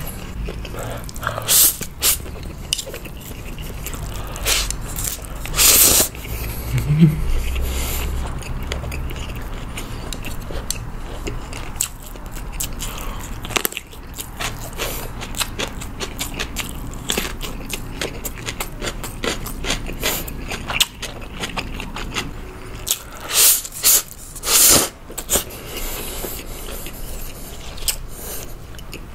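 Close-miked eating: steady wet chewing clicks, crunching bites of oiji (salt-pickled cucumber) and crisp air-fried Vienna sausages, and a few loud slurps of stir-fry noodles, one about six seconds in and a pair around twenty-four seconds. A low rumble sits underneath for the first dozen seconds.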